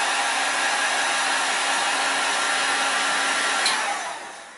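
Handheld heat gun blowing hot air steadily onto freshly applied epoxy in a fishing-rod ferrule joint, warming it so that air bubbles escape. It is switched off with a click near the end and winds down.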